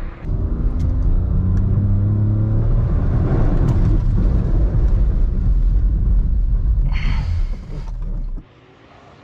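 Car engine accelerating hard, its pitch rising, over a heavy low rumble. About seven seconds in a short hissing rush of tyres and water comes as the car brakes with ABS off, then the sound cuts off abruptly.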